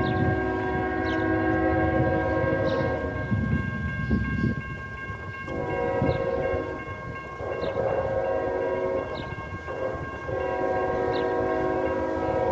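Locomotive air horn of an approaching freight train, a chord of several steady tones, blowing long blasts with one short blast near the end before a final long one: the grade-crossing signal.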